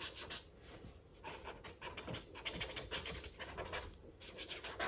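Felt-tip marker drawing on sketchbook paper: a quick run of short, faint hissing strokes, coming thicker in the second half.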